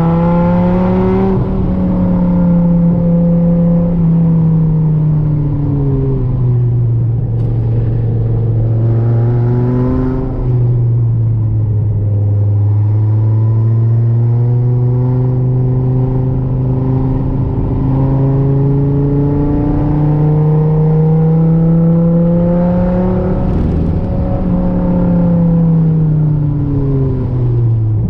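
Dodge Viper GTS V10 engine through its side exhaust, heard from inside the cabin while lapping a track. The pitch drops over the first several seconds as the car slows for corners, climbs slowly for about ten seconds under throttle, then falls again near the end.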